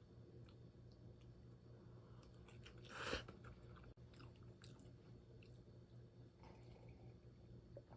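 A person chewing food faintly, with small wet clicks and one louder crunch about three seconds in, over a steady low hum.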